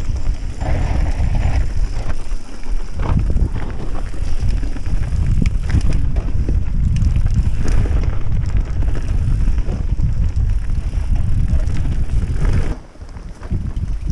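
Mountain bike riding fast down a dirt trail, heard from a camera on the rider's own bike: wind buffeting the microphone over a steady tyre rumble, with many short clicks and knocks as the bike rattles over bumps. The noise drops away briefly near the end.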